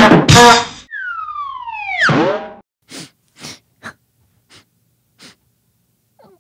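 Voiced cries for an animated baby emu chick: loud yelps as it tumbles, then a long wail sliding down in pitch. Five short sobbing sniffles follow, each fainter than the wail, as the chick cries.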